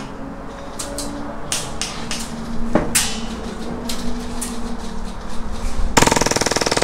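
Airsoft gunfire: scattered single shots and clacks, then, about six seconds in, a rapid full-auto burst of just under a second from an Action Army AAP-01 gas blowback airsoft pistol.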